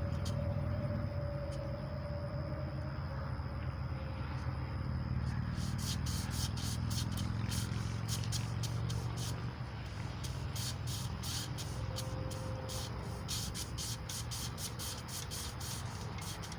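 Emery cloth being worked back and forth around a small-block Chevy 350 crankshaft journal. Rapid short rasping strokes, a few a second, start about five seconds in over a steady low rumble.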